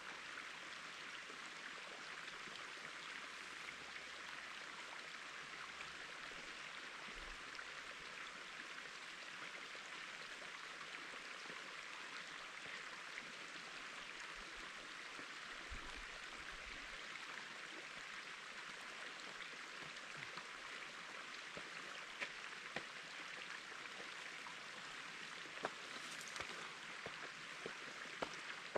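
Faint, steady rush of water running down the rock slabs and drainage of the slide, with a few soft clicks in the later part.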